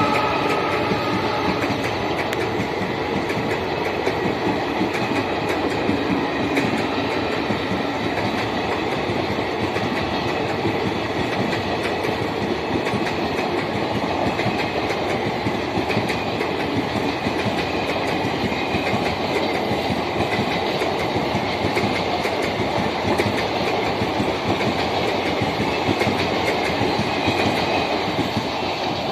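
Passenger coaches of an express train rolling past at speed, the wheels clattering steadily over the rail joints. A dual-tone horn dies away about a second in.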